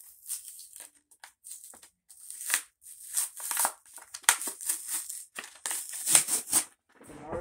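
Foil Pokémon booster-pack wrapper being crinkled and torn open by hand: a run of irregular crackling rustles, loudest about four and six seconds in.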